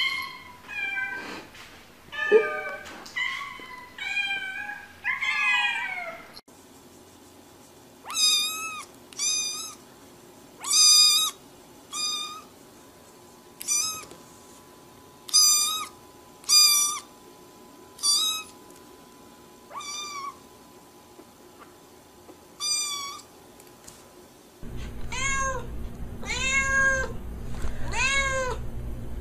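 Domestic cats meowing in a series of short calls. First come several gliding calls, then about ten short, high-pitched meows a second or two apart, then a white-and-black cat meowing repeatedly in rising-and-falling calls over a steady low hum.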